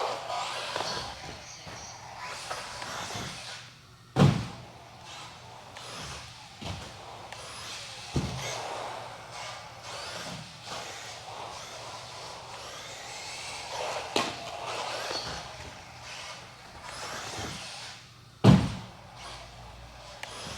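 Electric 1/10 RC buggy's motor whining, rising and falling in pitch as it accelerates and slows around the track, with two heavy thumps, about 4 seconds in and near the end, as the car comes down hard on the track after jumps.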